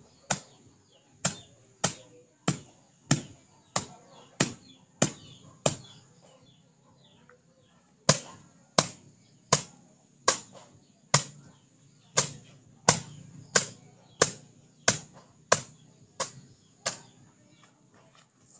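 Sharp knocks repeating about every two-thirds of a second, each with a short ringing tail, stopping for about two seconds partway through and ending shortly before the end.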